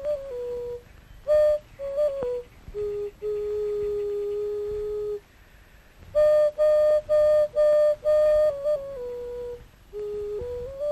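Solo end-blown wooden flute playing a simple, unaccompanied melody. It moves between a few notes: a long held low note in the first half, a short pause, then a run of short, repeated higher notes that step down to a held note, and it climbs again near the end.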